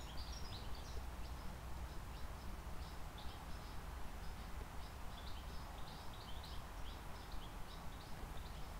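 Small birds chirping, short high chirps coming irregularly several times a second, over a low steady outdoor rumble.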